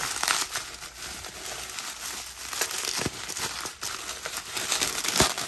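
Bubble wrap crinkling and rustling as it is pulled apart by hand, with a few sharper crackles.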